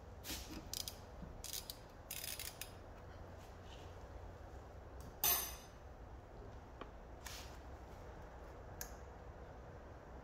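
Scattered small metallic clicks and scrapes of hand tools and a bleed tube being handled at a car's rear brake caliper during brake bleeding, with one louder short clatter about five seconds in.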